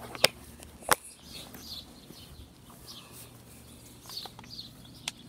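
Two sharp knocks in the first second, then scattered faint bird chirps over a low steady background hum.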